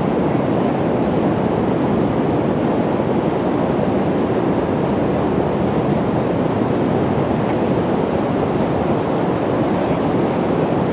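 Steady rush of ocean surf and wind on an open beach, an even roar with no breaks or changes.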